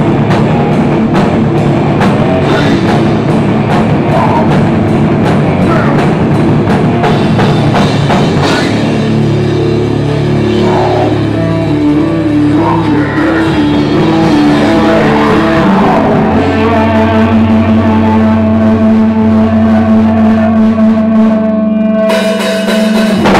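Live metal band playing loud, with distorted guitars and a drum kit. The drumming thins out about eight seconds in, leaving guitar riffs, and the song ends on a long held chord.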